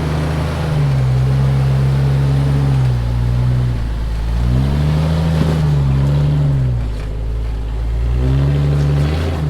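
An engine running under load, its pitch holding for a second or two and then falling or rising to a new level several times as the revs change.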